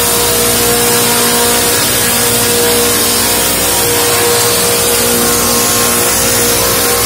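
LogRipper-200 one-pass sawmill running, its circular saw blades spinning as a log is fed through on the chain conveyor to be ripped into boards. A loud, steady machine whine with a constant pitch throughout.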